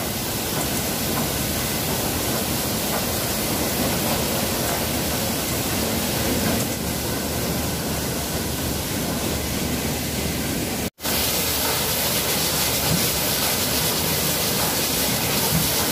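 Ginger washing machine running, with water jets spraying onto ginger on its rotating drum and conveyor: a steady hiss of spray over the machine noise. It breaks off for an instant about eleven seconds in.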